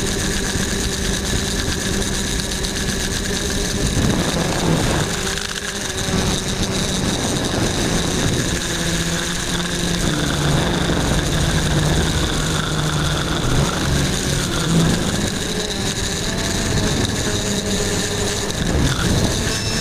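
Quadcopter's electric motors and propellers whining steadily, heard through the onboard GoPro, with several held tones that shift slightly in pitch as the drone manoeuvres.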